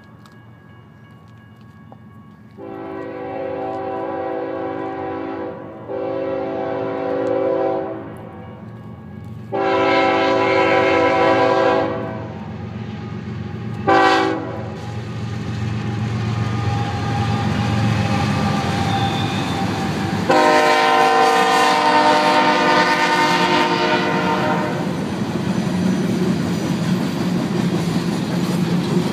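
Approaching BNSF freight train led by a GE ES44C4 diesel locomotive sounding its air horn several times: three long blasts, a short one, then a final long blast. Under the horn the diesel engines rumble, growing louder as the locomotives pass, followed by freight cars rolling by with clickety-clack.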